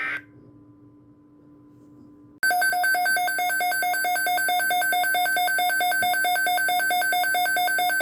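Electronic emergency alert tone: after a brief burst of tones at the start and about two seconds of quiet, a loud, harsh beeping begins, pulsing several times a second with many overtones, like a weather alert radio's alarm.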